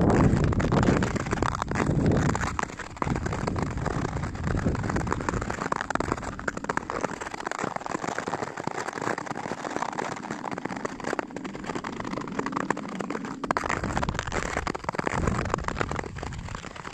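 Nordic skate blades gliding and scraping over snow-dusted natural lake ice, a continuous crackling hiss. Wind rumbles on the microphone in the first few seconds and again near the end.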